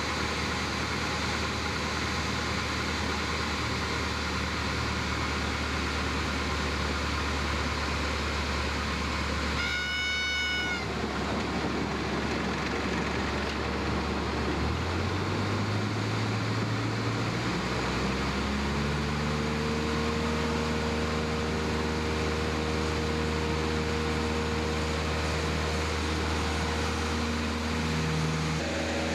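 Cessna light aircraft's single piston engine heard inside the cabin, running at low power on the runway, then throttled up about halfway through: its pitch climbs over a few seconds and holds at full power for the takeoff roll. A brief high tone sounds about ten seconds in.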